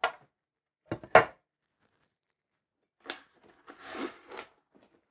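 Hard clunks of a removable nonstick grill plate being set down on the counter, the loudest about a second in, then softer clatters and scrapes as the countertop electric grill's lid and hinge are handled.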